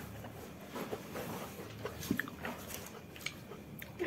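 Soft mouth sounds of someone eating with her fingers: faint chewing, lip smacks and finger-licking, heard as scattered small clicks.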